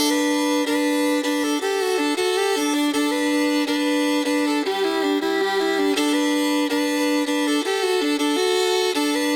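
Country music: a fiddle plays the melody of a song's instrumental intro, starting suddenly.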